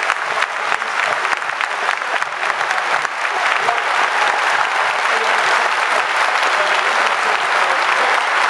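A large stadium crowd applauding. Sharp hand claps from people close by stand out in the first few seconds, then the applause thickens into a dense, steady sound, a little louder from about three seconds in.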